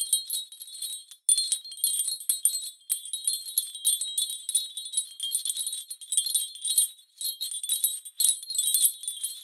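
High, bright metallic jingling and tinkling in uneven bursts with brief breaks, like small bells or chimes being shaken.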